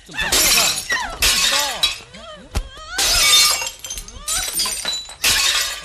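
Four crashes of objects being smashed and shattering, one after another, with a woman's voice crying out between them: someone in a rage breaking things.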